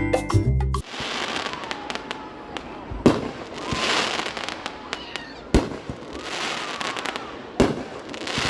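Fireworks going off: three sharp bangs about two to two and a half seconds apart, with crackling and hissing in between.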